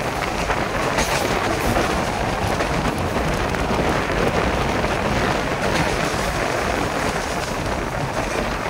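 Passenger train running steadily along electrified double track, heard from beside the coach: a continuous rumble and rush of wheels on rail.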